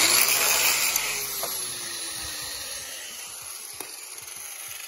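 Angle grinder with an abrasive grinding wheel running against a steel truck frame, a loud steady hiss with a low whine that slowly falls, easing off as it goes. The wheel is grinding through dirt and factory rubberized undercoat, which clogs it full of rubber so it glides over the surface instead of cutting.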